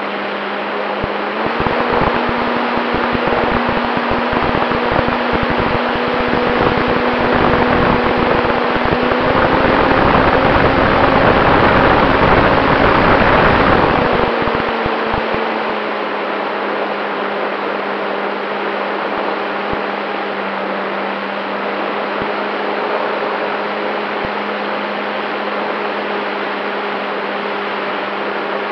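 Onboard sound of a radio-controlled model Cessna 188's motor and propeller: a steady drone that steps up in pitch a second or so in as the throttle opens, rises further and is loudest about halfway through, then eases back to a lower steady note. Rumble and wind buffeting on the microphone accompany the louder first half.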